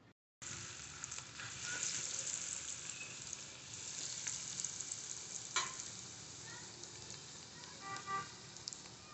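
Breadcrumb-coated paneer slices sizzling as they deep-fry in hot mustard oil in an iron wok: a steady hiss, with one sharp tap about halfway through.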